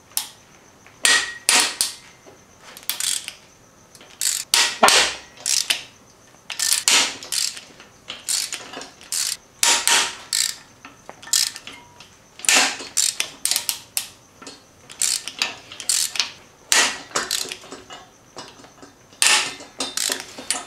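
Hand ratchet wrench clicking as it is swung back and forth to loosen the cylinder head bolts on a Subaru EJ25 SOHC engine. The clicking comes in short bursts, one or two a second.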